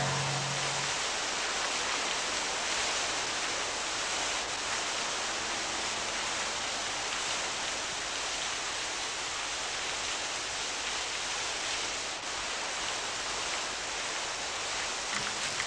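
A steady, even hiss with no pitch or rhythm.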